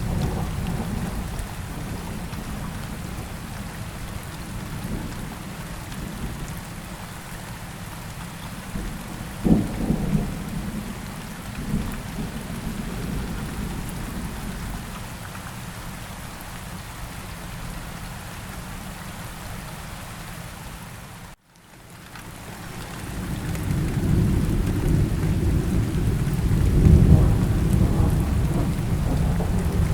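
Steady rain falling in a thunderstorm, with a sharp crack about a third of the way in. The sound cuts out for a moment about two-thirds of the way in, then a long low thunder rumble swells up and peaks near the end.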